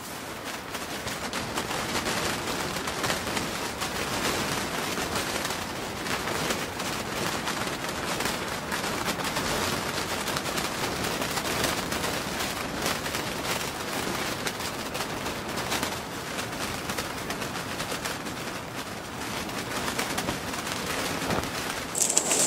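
Strong wind gusting against an Octagon Vanta pop-up hub tent, its fabric flapping and rattling in rapid, crackling strokes.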